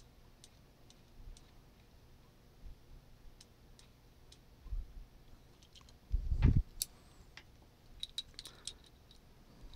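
Small sharp clicks and taps of a precision screwdriver and tiny parts being worked inside an opened Microsoft Band 2, with a dull handling thump about six seconds in and a quick run of clicks near the end.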